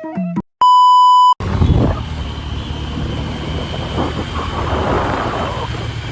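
A loud, steady electronic beep lasting under a second, cutting off abruptly, then a motorcycle engine running along the road with wind noise over the microphone.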